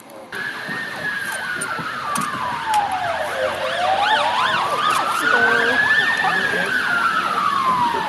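Emergency vehicle siren in a slow wail, its pitch sliding down, up and down again over about three seconds per sweep. A second, faster-warbling siren overlaps it in the middle. It starts abruptly just after the beginning.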